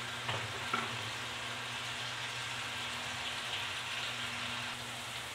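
Garlic, onion and ginger sizzling in hot cooking oil in a metal pan: a steady, even frying hiss.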